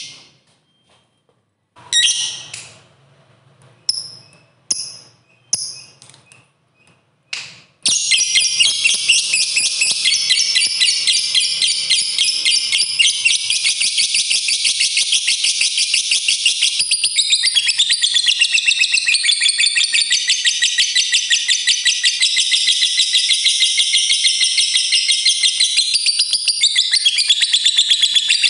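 Lovebird calling: a few short, sharp chirps spaced over the first seven seconds, then about eight seconds in it breaks into a long, unbroken chatter of rapid high notes and keeps it up for about twenty seconds. This long fast chatter is the 'ngekek panjang' song prized in fighter lovebirds.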